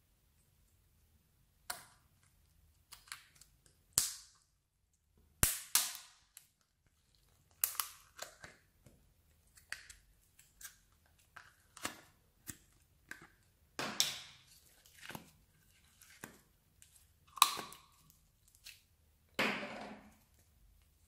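Slime squeezed and pulled apart by hand, giving irregular sharp pops and crackles as trapped air bursts, a few of them longer and louder.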